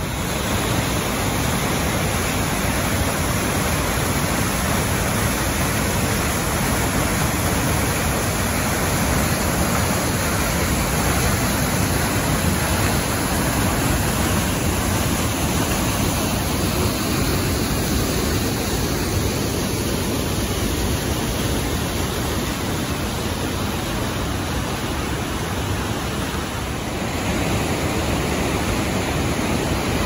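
Blodgett Canyon waterfall: whitewater pouring through a narrow rock gorge, a loud steady rush of water that dips slightly near the end.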